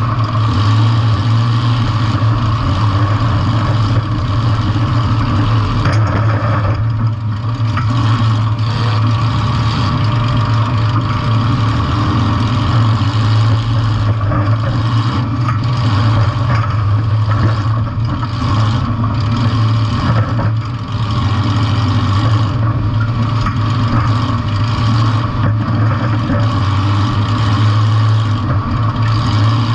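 Demolition derby compact car's engine running steadily with a constant low drone, heard loud and close.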